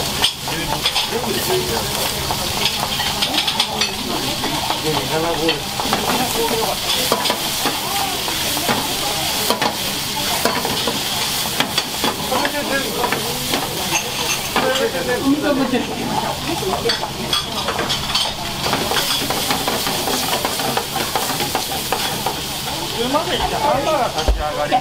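Food sizzling and frying in a frying pan on a restaurant kitchen range, steady throughout, with frequent short sharp clicks.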